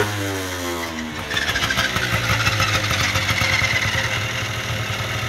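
Tomos moped's two-stroke single-cylinder engine, fitted with a 70cc kit and 17mm carburettor, dropping in revs after a throttle blip during the first second, then running steadily at a fast idle with a slight rise in pitch partway through.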